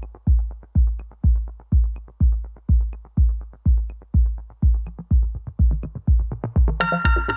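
Electronic dance music: a deep kick drum about twice a second with lighter hits between, and a bright synth chord coming in near the end.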